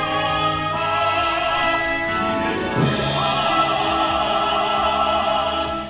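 Male opera singers singing with orchestral accompaniment, one voice giving way to another about three seconds in, with a wide vibrato on the held notes after the change.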